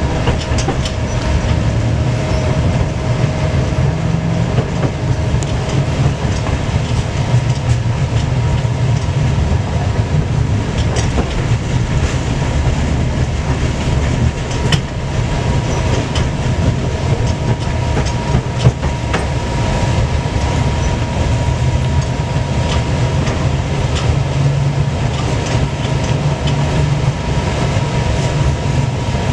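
Tram running along its track, heard from inside the car: a steady low rumble of wheels on rails, with irregular clicks and knocks over the rail joints and a steady high whine underneath.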